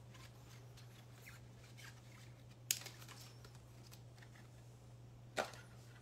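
Faint off-camera rustling and ticking over a steady low hum, with two sharper clicks, one about halfway through and another near the end.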